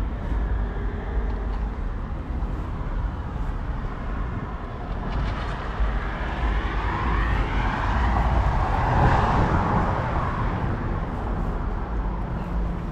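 Outdoor traffic noise: a steady low rumble, with a vehicle passing by that builds up about halfway through and fades again a few seconds later.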